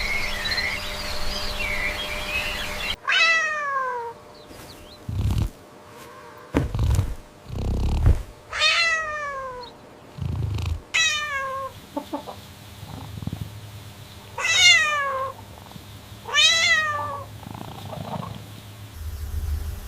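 Birds chirping briefly, then a cat meowing about five times, each meow falling in pitch, with a few low thuds between the first meows.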